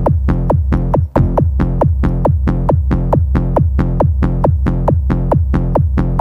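Electronic background music with a fast, even beat and a deep bass line. It cuts out for an instant about a second in.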